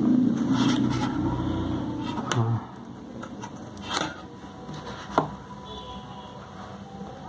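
Steel ruler and pencil being handled on a drawing book on a tabletop: a few light knocks and a sharp metallic clink about five seconds in as the ruler is shifted and set down. A low rumble fills the first two and a half seconds, then stops.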